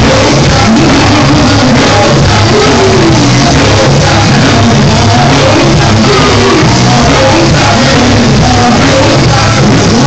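Gospel quartet performing live with a band: a lead singer and background singers over drums and instruments, loud and continuous.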